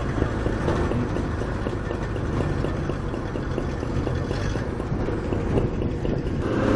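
Engines of vintage cars and a motorcycle running at low revs, a steady low rumble, as old cars roll slowly past in convoy.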